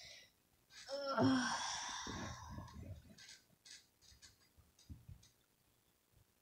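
A person sighing heavily about a second in: a brief voiced start trailing off into a long breathy exhale. A few faint clicks follow.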